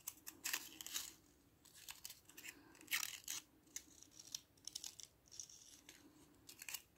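Soft, intermittent rustling and crinkling as a skein of macrame cord is handled.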